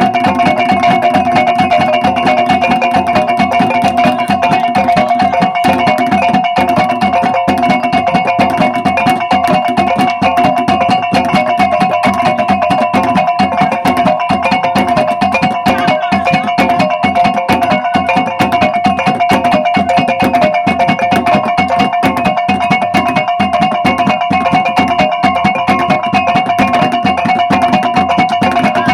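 Ngada gong and drum ensemble playing: a rapid, unbroken beat of drum strokes over the steady ringing of the gongs.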